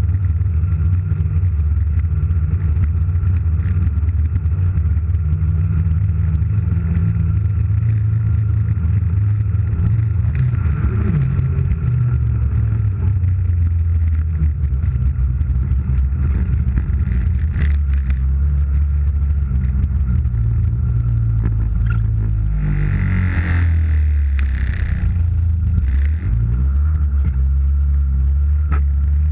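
Snowmobile engine running as it tows a sled over snow, heard from the sled under heavy rumble and scraping from the ride. About 23 seconds in there is a brief louder rush of noise.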